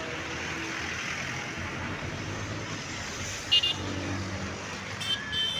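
Road traffic passing, with a short, high vehicle horn toot about three and a half seconds in and another near the end.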